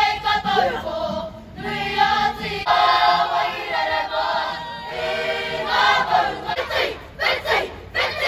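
A children's Māori kapa haka group singing together in chorus, in phrases with short breaks between them.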